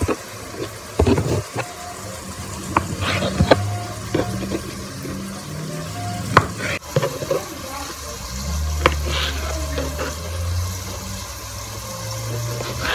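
Kitchen knife cutting down through a stack of tortillas, each stroke ending in a knock on the cutting board, several times at uneven intervals.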